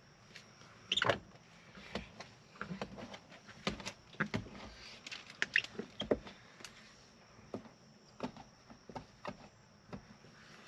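Squeegee working wet tint film against a truck's door window glass: short, irregular scrapes and squeaks, the loudest about a second in.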